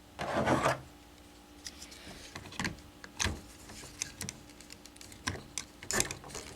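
Hard plastic toy parts being handled: a short sliding scrape in the first second, then scattered small clicks and taps as the arm pieces of a transforming-robot combiner figure are slid on and fitted into place.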